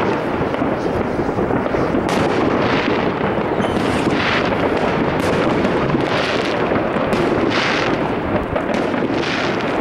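New Year's fireworks going off: a dense, continuous barrage of overlapping bangs, with a few sharper bangs standing out.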